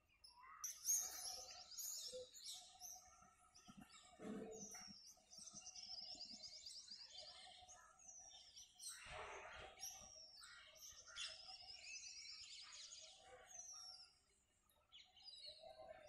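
Faint birdsong: many quick, high chirping and twittering calls overlapping, with a short lull near the end.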